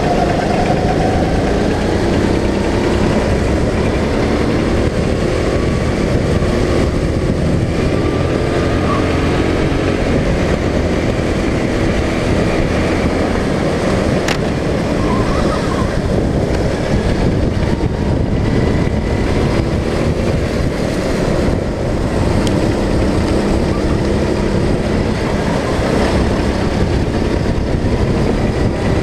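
Go-kart's small engine running hard on track, its pitch rising and falling with the throttle, under a loud steady rush of wind and road noise on the onboard microphone; other karts run close by.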